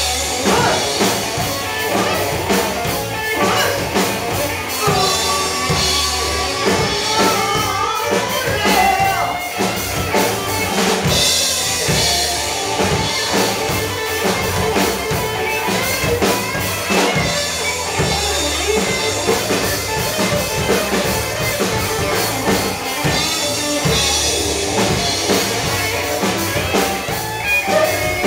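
A live rock band playing an instrumental passage without vocals: a drum kit keeping a steady beat under electric guitar and bass, with gliding lead guitar notes about five to nine seconds in.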